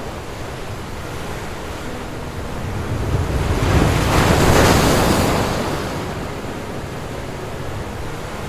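Ocean surf on a sandy beach: a steady wash of waves, with one wave swelling and breaking loudest about halfway through before washing back down.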